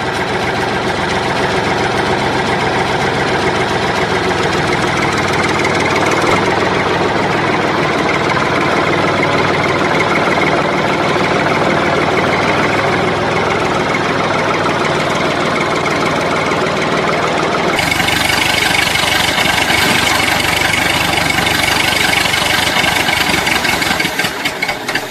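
Recorded engine sound effect for a toy tractor: a steady, idling tractor-style engine running continuously. Its tone shifts a little about six seconds in and again a few seconds past the middle.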